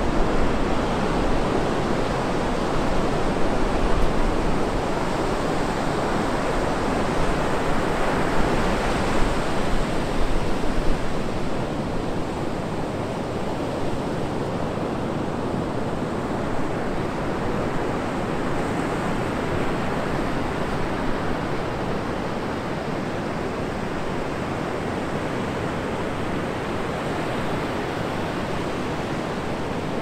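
Atlantic surf breaking on a sandy beach: a continuous rush of waves, swelling louder over the first ten seconds or so as breakers crash, then settling into a steadier, softer wash.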